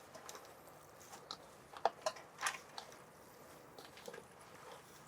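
Faint, scattered wet clicks and squishes of noodles in sauce being handled and mixed in a basin.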